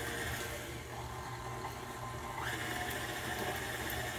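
KitchenAid tilt-head stand mixer running steadily, its motor humming and whining as the beater mixes eggs, vanilla and lemon juice into creamed cookie dough. The whine steps up a little about halfway through.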